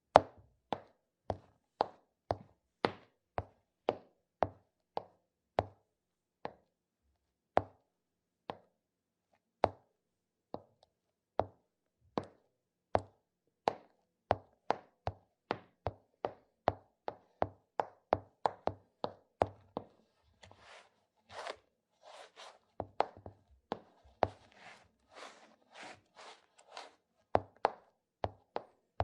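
Footsteps on a hard surface, each step a sharp separate tap. They start at about two a second with a few pauses, then come quicker. From about twenty seconds in, softer scuffing steps take over for several seconds, before sharp taps return near the end.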